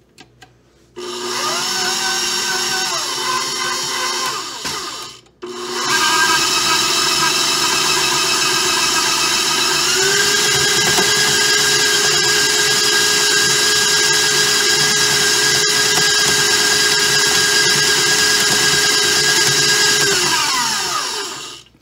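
Old KitchenAid stand mixer's motor whining as it beats pie-crust dough. It starts about a second in, cuts out briefly around five seconds, restarts, steps up in speed around ten seconds and winds down near the end. The machine is very old and has had four gears replaced.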